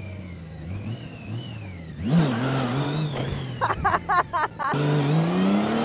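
Honda Gold Wing's flat-six engine running: a steady hum, then a louder rev about two seconds in, and a rising pitch near the end as the bike accelerates.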